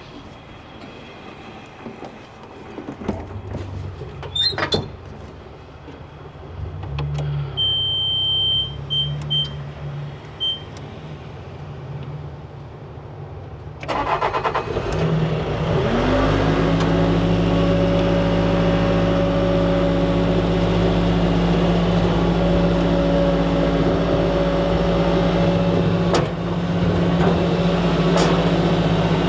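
A Bobcat T450 skid steer's diesel engine starts about halfway through and rises quickly to a steady, loud high-throttle run. Before that there is a low hum and a few short high beeps.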